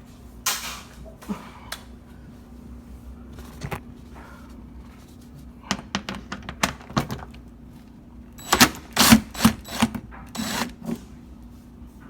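Hand tools on bolts: the clicks and knocks of a socket ratchet and metal tools. There is a sharp knock about half a second in, a run of quick clicks around six seconds in, and a louder cluster of clicks near nine seconds.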